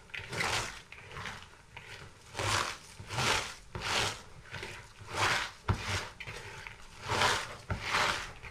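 Hands squeezing and kneading shredded raw cabbage, beetroot, carrot and apple in a plastic bowl: a rhythmic crunchy rustling, about one squeeze a second, as the vegetables are crushed to release their juice.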